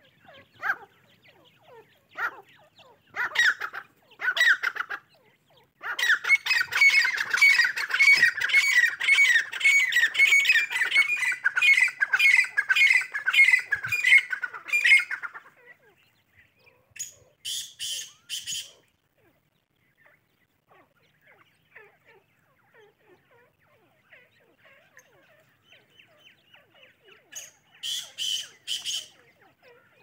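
Francolin calling: a few separate calls, then a loud, fast run of repeated calls lasting about ten seconds, then two short groups of high, quick calls near the end.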